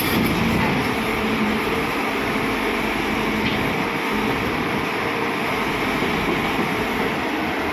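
Hyundai R140LC-9 crawler excavator's diesel engine running steadily under load with its hydraulics working as it crawls down off a truck bed.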